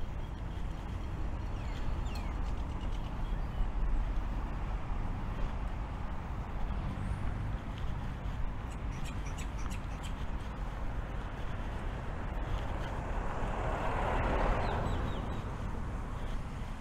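Outdoor city-park ambience: a steady low rumble of distant traffic with a few short bird chirps. About thirteen seconds in, a louder hiss swells and fades over two seconds or so.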